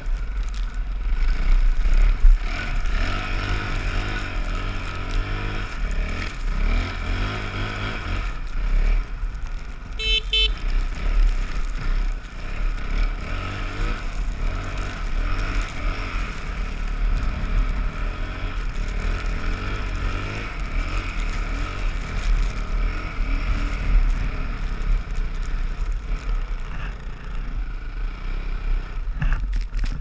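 Dirt bike engine running as it rides through deep snow, its revs rising and falling, over a steady deep rumble.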